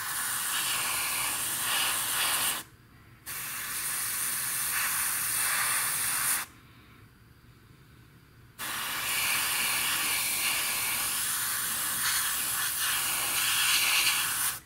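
Airbrush spraying acrylic primer: a steady hiss in three long bursts. It breaks off briefly about three seconds in, then for about two seconds in the middle.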